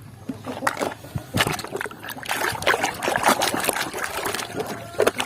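Water splashing and trickling with small irregular knocks as plastic toy vehicles are handled and rinsed in water.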